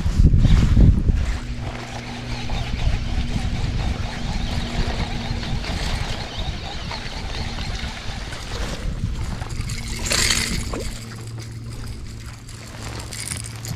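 A boat motor running with a steady low hum, over a rushing background noise. A heavy low rumble fills the first second, and a short burst of hissing noise comes about ten seconds in.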